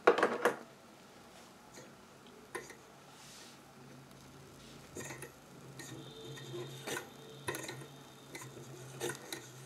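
Light clicks and taps of glass and metal as a small Stirling engine model and its glass spirit lamp are handled. The loudest cluster of clicks comes right at the start, followed by a few scattered single ticks, over a faint steady low hum.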